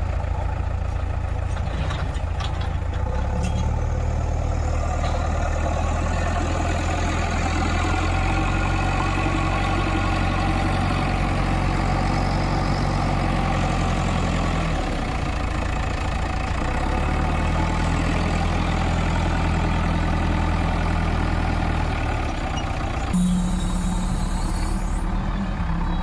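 Diesel engine of a backhoe loader running as it works, its engine speed rising and falling several times under load. The sound changes abruptly near the end.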